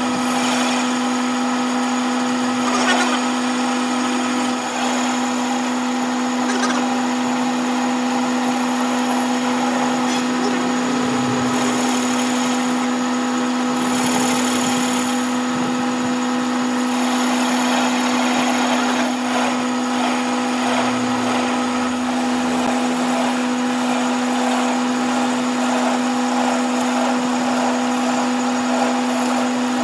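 An electric machine motor running steadily with a constant-pitch hum, with a few noisier passages around the middle that fit metalworking on the crankshaft.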